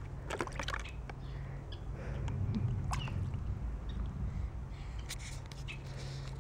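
Water splashing and dripping in a plastic bowl as a baby's hands and plastic cups dip into it, with a few sharp clicks of plastic cups and toys knocking together.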